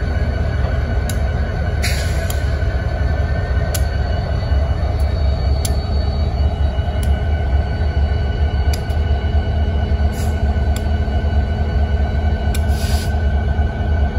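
Diesel-electric freight locomotives (a yellow NYSW unit with black Norfolk Southern and Susquehanna units) rolling slowly past, giving a deep, steady engine rumble with a steady high whine over it. Sharp clicks come every second or two, and two short hisses come about two seconds in and near the end.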